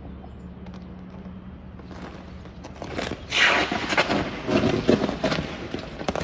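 Electric arcing where detached overhead line wires touch a passing train's pantograph: about three seconds in, a run of loud crackles and bangs breaks out over a low steady hum and goes on for several seconds. The arcing sets the wires smoking and flaming.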